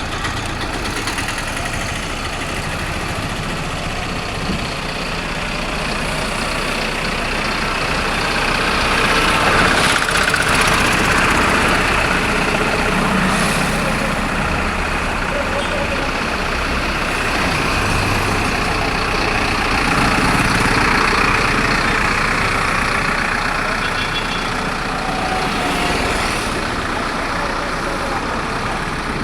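Bull CH74 backhoe loader's 74-horsepower diesel engine running steadily, swelling louder twice as it is worked.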